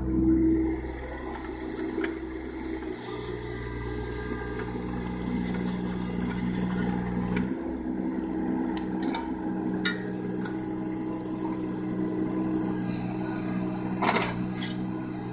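John Deere 17D mini excavator's diesel engine running steadily under load while its hydraulic arm works the bucket through mud and roots. A sharp knock comes about ten seconds in and a clatter near the end.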